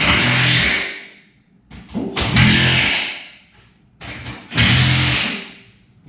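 A power tool run in three short bursts of about a second each, each one trailing off.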